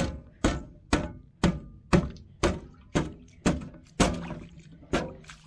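A boot kicking repeatedly at the frozen-shut lid of a metal livestock waterer, about two sharp thunks a second, each ringing briefly, as the ice holding it gives way.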